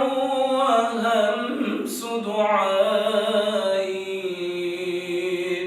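A man's solo voice singing an Arabic religious nasheed, holding long notes that bend and waver in melismatic ornament.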